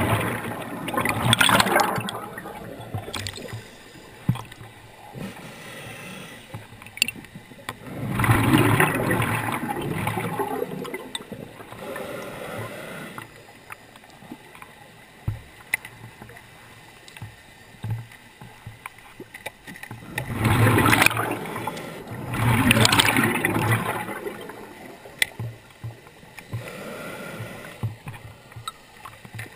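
Scuba diver breathing through a regulator underwater: rushing bursts of exhaled bubbles near the start, about eight seconds in and about twenty seconds in, each lasting two to three seconds, with quiet water and faint ticking between breaths.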